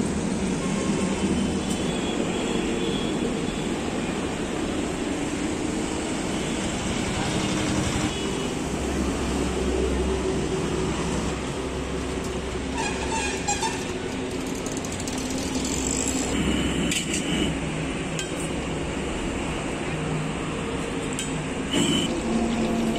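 Eggs frying in oil on a large flat iron griddle (tawa): a steady sizzle over a low rumble, with a few metal spatula clinks and scrapes on the iron, one near the end.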